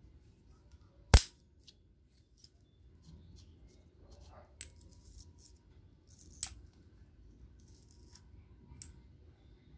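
Locking welding clamp pliers being worked by hand, giving sharp metal clicks as the jaws and release lever snap. The loudest click comes about a second in, then three lighter ones spaced over the following seconds.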